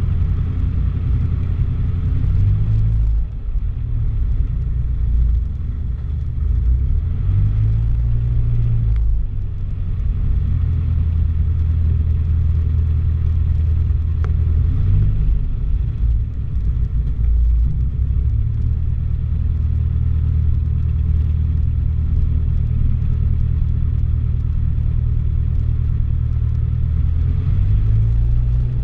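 Cessna 152's four-cylinder Lycoming piston engine running at low taxi power, heard from inside the cabin as a steady low drone. Its pitch shifts slightly a few times as the throttle is adjusted.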